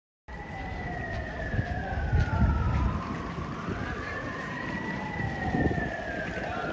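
Emergency vehicle sirens wailing: two tones slowly rising and falling out of step, crossing each other, over low rumbling street noise.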